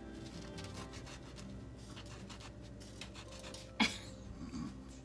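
A knife sawing lengthwise through crusty baked corn dogs: a rough, scratchy rasping made of many small strokes. There is one sharp click a little under four seconds in.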